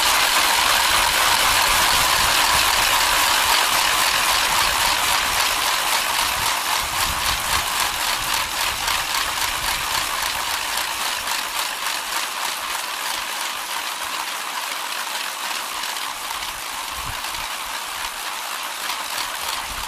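Many wooden ratchet rattles (kereplő) cranked together by a group of boys: a dense, continuous clattering of wooden clappers, the Holy Week noise sounded in place of the silent church bells. It grows gradually quieter.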